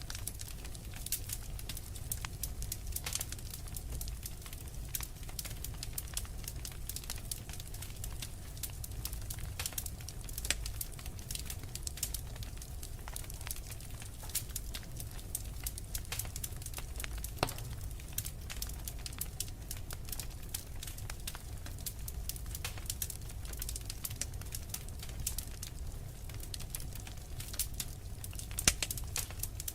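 Wood fire crackling, with frequent small pops and a few sharper louder ones over a steady low rumble.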